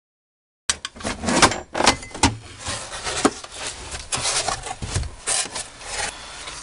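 Plastic interior trim and cargo-area panels being pulled back and flexed by hand: irregular knocks, clicks, scraping and rubbing of plastic against sheet metal. The sound starts abruptly under a second in.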